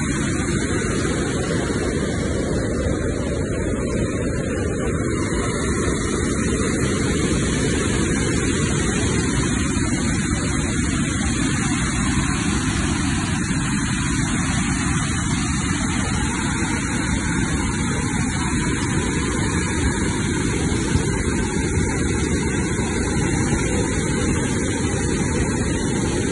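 Floodwater rushing and churning in white foam through a dam's outlet: a loud, steady rush of water.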